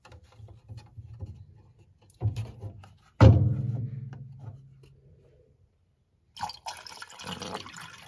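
A few light handling knocks, then a loud knock about three seconds in that rings on and fades over about two seconds. From about six seconds in, water rushes and splashes through a miniature model toilet as it flushes.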